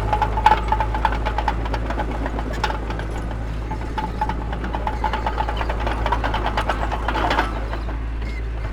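Heavy diesel earthmoving machinery running with a steady low rumble, overlaid by dense clanking and rattling that stops about seven and a half seconds in.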